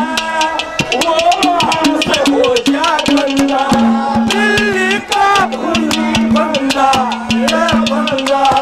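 Live Haryanvi ragni music: a man's voice carrying a gliding melody over a steady held drone, with fast, even drum beats.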